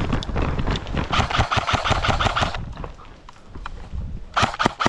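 Airsoft electric gun firing on full auto: a rapid, even string of shots for about a second and a half, then a shorter burst near the end.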